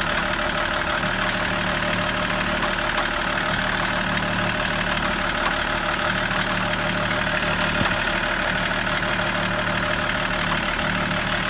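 BMW E46 engine idling steadily, with scattered sharp clicks and crackles, about a dozen, coming from the steering as the wheel is turned. This is the creak-and-click fault heard when the steering wheel is turned.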